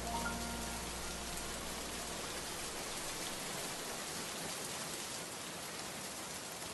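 Steady rain falling, an even hiss of drops. The last held notes of a slow song die away under it in the first second or two.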